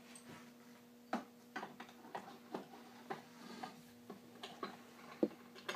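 Small steel C-clamps being picked up and fitted: irregular light metal clicks and taps, about one or two a second, as the clamps are set and their screws turned. A faint steady hum runs underneath.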